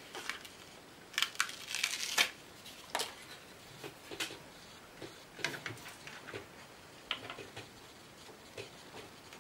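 Quiet handling noise of a Samsung SSD with adhesive Velcro strips being fitted by hand to the metal wall of a computer case: a cluster of rustling scrapes a second or two in, then scattered light clicks and scuffs.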